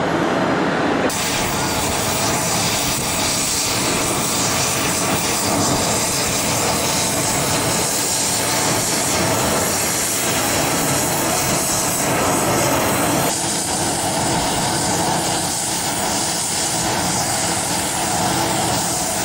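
A twin-engine business jet's rear-mounted turbofans at takeoff power as it rolls and climbs away, giving a loud, steady jet noise. The tone of the noise changes abruptly about a second in and again about two-thirds of the way through.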